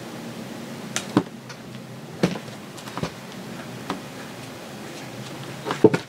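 Scattered light clicks and knocks of a metal outboard lower-unit bearing carrier being handled and turned on a shop towel, over a steady low hum and hiss.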